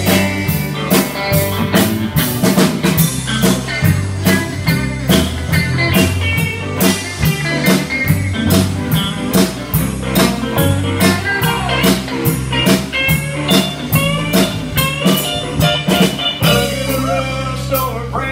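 Live country band playing: guitars over a drum kit's steady beat and a moving bass line.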